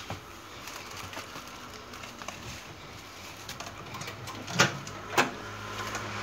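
Faint handling noise, then two sharp knocks about half a second apart near the end, after which a low steady hum sets in.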